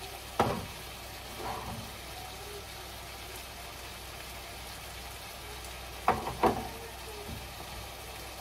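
Mushrooms and onions frying in a pan with a steady sizzle. A sharp knock comes about half a second in, and two more come close together about six seconds in.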